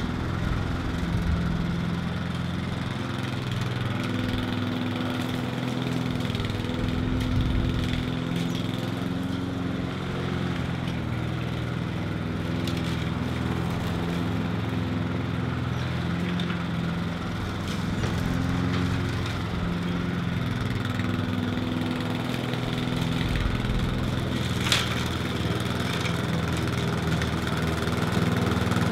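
Walk-behind lawn mower engine running steadily while mowing, its pitch wavering slightly. A single sharp click sounds near the end.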